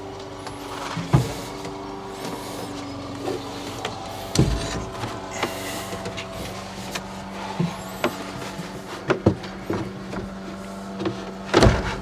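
A plywood box being handled and shifted on a carpeted truck bed: scattered knocks and thumps of wood with some sliding, the heaviest knocks shortly before the end. A steady low hum runs underneath.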